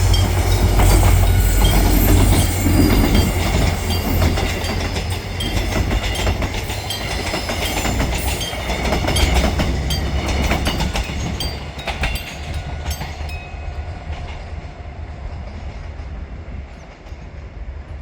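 Diesel-hauled passenger train passing over a level crossing, a heavy rumble with wheels clattering over the rail joints. It grows fainter through the second half as the train moves away.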